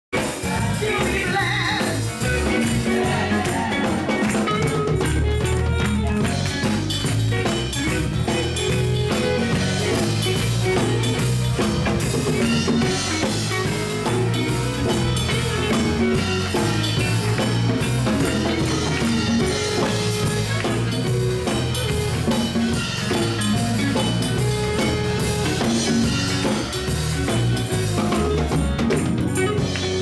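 Live gospel band playing steadily, with a prominent electric bass line, drums and voices singing.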